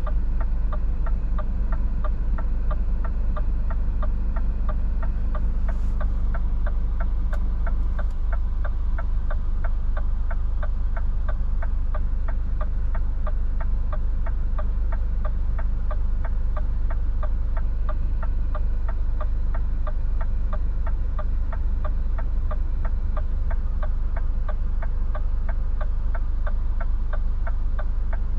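Scania S450's 13-litre straight-six diesel idling, heard as a steady low rumble inside the cab, with the turn indicator ticking at an even pace. A higher drone in the engine noise drops away about eight seconds in.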